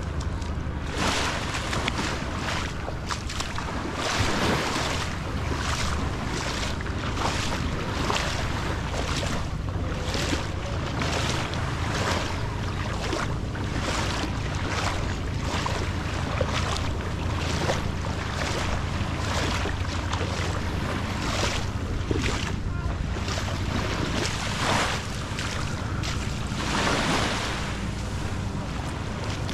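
Small waves lapping on a sandy shore, with soft rushes about once a second, over a low steady hum and wind on the microphone.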